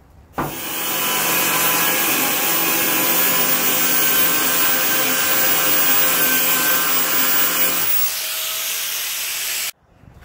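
Electric angle grinder grinding rusted steel cab sheet metal, knocking down curved-up edges. It starts about half a second in and runs steadily, drops a little for the last couple of seconds, then cuts off suddenly.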